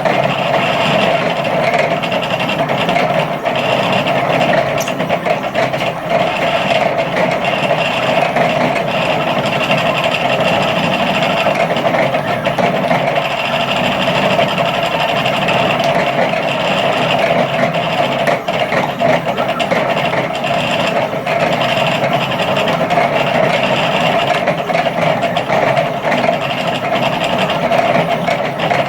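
Home-built Sidewinder CNC router running a program: the router motor runs steadily while 400 oz-in stepper motors drive the axes in quick back-and-forth and up-and-down moves.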